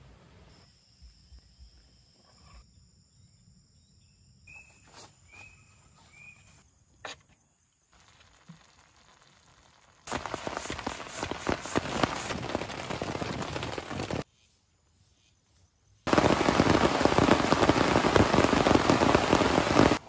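Heavy rain falling, a dense steady patter. It cuts in suddenly about halfway through, stops abruptly a few seconds later, then returns louder for the last few seconds. The quieter first half holds only a few short high chirps and faint clicks.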